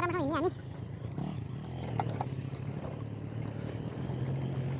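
Motorcycle engine running at low, steady revs while riding down a rough, rocky dirt track, with a couple of sharp clicks of stones about two seconds in. A brief wavering vocal call ends about half a second in.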